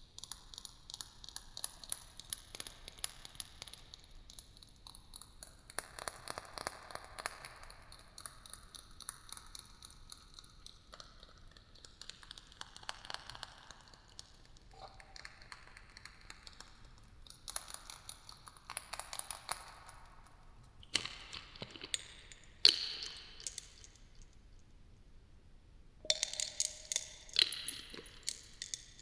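ASMR trigger sounds close to the microphone: fine crackling and light clicking on an object, with a few sharp, louder taps about three quarters of the way in and a quick run of taps near the end.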